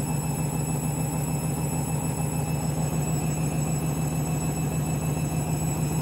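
Candy Grand'O Vita front-loading washing machine running in its final 400 rpm spin stage with a duvet load: a steady motor hum with a fine even pulsing from the turning drum.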